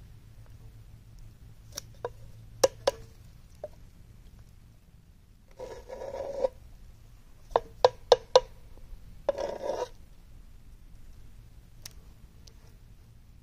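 A hand tool scraping and knocking in a metal tray of heated wet clay as the clay is worked to let its moisture steam off. There are sharp taps, two scrapes of about a second each in the middle, and a quick run of four knocks between them.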